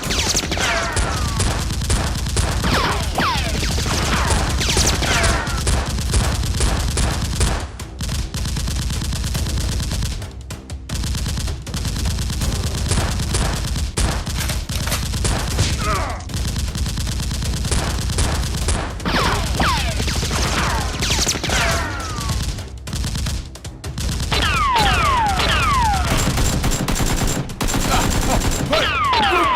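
Sustained rapid automatic gunfire, shot after shot, mixed with short falling whines, with a few brief lulls.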